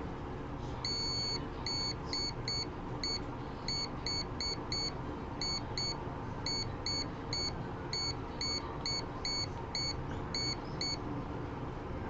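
A multimeter's continuity buzzer giving many short, identical beeps at an uneven pace, starting about a second in, as test probes touch points along a breadboard's power rail. Each beep signals that the two probed points are electrically connected.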